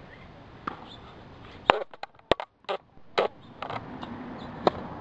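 Tennis ball bounced several times on a hard court, a series of sharp knocks, then near the end a single sharp pop of the racket striking the ball on a serve.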